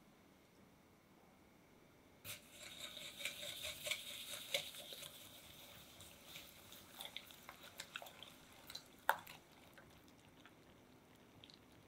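Silicone-coated whisk stirring eggs and granulated sugar in a glass bowl: a scratchy swishing with many light ticks, starting about two seconds in and thinning out after about six seconds. A single sharp click near the end.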